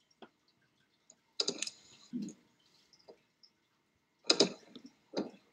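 A scattering of short, sharp clicks and duller knocks in a quiet room, with louder clusters about a second and a half in and again just past four seconds.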